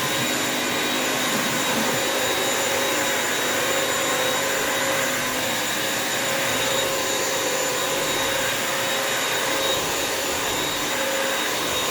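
Bissell vacuum mop running steadily while wet-mopping a floor: an even motor rush with a steady high whine.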